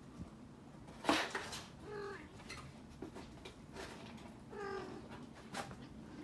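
Domestic cat meowing twice, short calls about two seconds and nearly five seconds in, with a brief scuffing noise, the loudest sound, about a second in.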